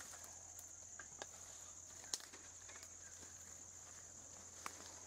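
Steady high-pitched drone of insects, with a few scattered sharp clicks, the loudest about two seconds in.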